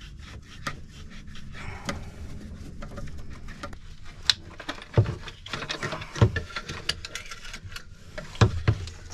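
Hands working at a sailboat's centerboard lifting cable and lever: irregular clicks, knocks and rattles, with a few dull thumps about five, six and eight and a half seconds in.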